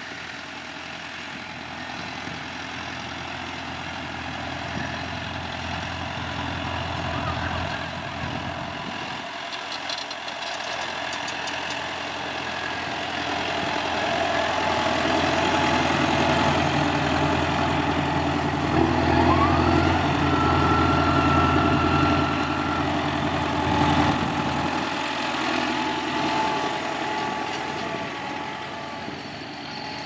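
John Deere 5100R tractor's four-cylinder diesel engine running under load while pulling a two-furrow Kverneland reversible plough through the soil. It grows louder as the tractor passes close by, then fades as it moves away. A high whine rises and holds for a few seconds just after the closest pass.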